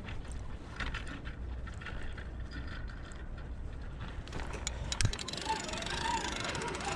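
Daiwa spinning reel being cranked, its gears and handle ticking, as line is wound in against a heavy hooked conger eel. A sharp knock comes about five seconds in, over a low steady rumble.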